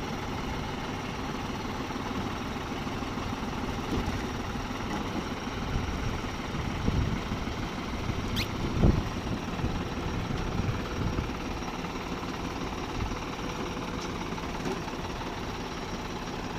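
Diesel engine running steadily, with a few knocks and one louder thump about halfway through.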